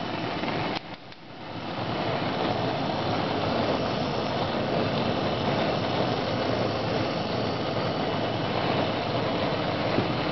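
Gas burners on a Wolf range burning with a steady rushing noise. The noise dips briefly about a second in, as a burner is turned on, then builds back and holds steady.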